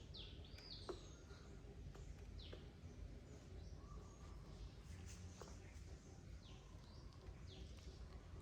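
Faint, short, high chirps that each fall quickly in pitch, a few seconds apart, over a low background rumble.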